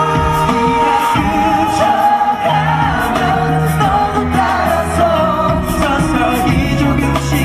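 Male vocalists singing a pop song into handheld microphones over a backing track with steady bass notes.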